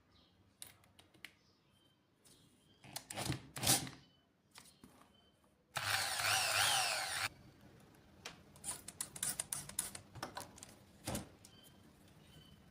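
A small power tool runs for about a second and a half, its pitch wavering, amid clicks and scraping sounds from handling tools and blades.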